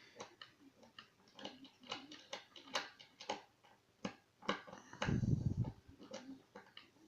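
Irregular small metallic clicks and ticks of a pin-tumbler lock and picking tools being handled up close, with a louder low thump about five seconds in.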